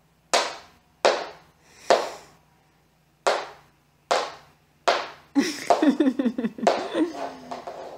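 A small plastic toy banged on a laminate wooden floor by a baby: six sharp knocks about a second apart. After that comes a quick flurry of taps mixed with the baby's babbling, which falls in pitch near the end.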